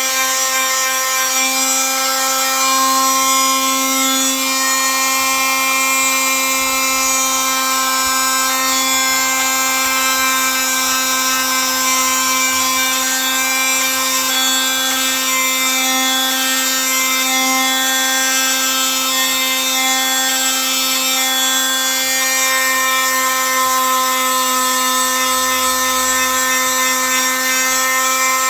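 Electric power tool running at a constant speed, a steady pitched whine with a hiss over it.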